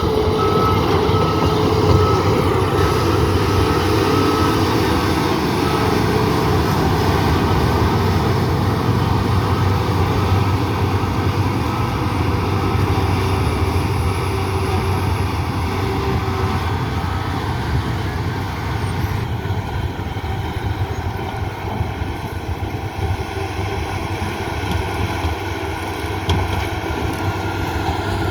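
Diesel engine of a heavy earthmoving machine running steadily under work, with its reversing alarm beeping in an even on-off rhythm for the first few seconds and again around the middle.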